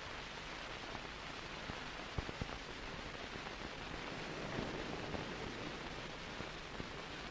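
Steady hiss of an old film soundtrack, with a couple of faint clicks about two seconds in.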